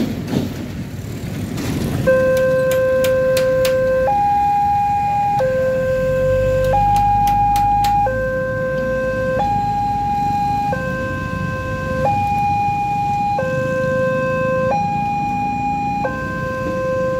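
Railway level-crossing warning alarm starting about two seconds in: an electronic two-tone signal alternating steadily between a low tone and a higher one, each held for over a second. It warns that a train is approaching and the barriers are closing. A few sharp clicks sound early in the alarm, over street traffic.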